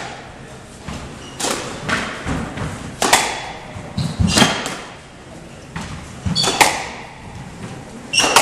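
Squash rally: repeated sharp cracks of the ball struck by rackets and hitting the walls, ringing in the enclosed court, with a few short squeaks of shoes on the wooden floor.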